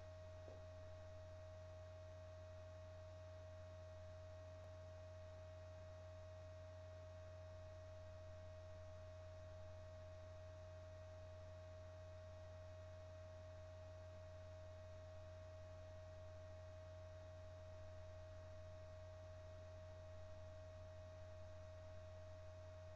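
Near silence: a steady low hum with a thin steady tone above it, unchanging throughout.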